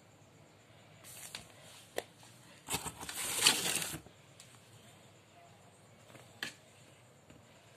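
Cats playing at a cardboard box on a tiled floor: short rustling and scraping noises, the loudest lasting about a second around the middle, with a couple of light knocks.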